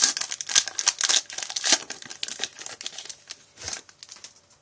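Foil wrapper of a 2011 Topps Chrome baseball card pack torn open and crinkled by hand: a quick run of sharp crackles that thins out toward the end.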